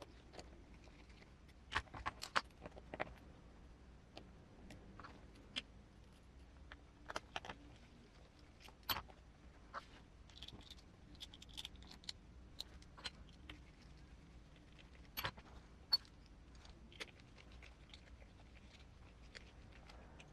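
Scattered sharp clicks and light taps of small plastic and metal parts being handled while an RC crawler's beadlock wheel is assembled, with the loudest clicks about two, nine and fifteen to sixteen seconds in.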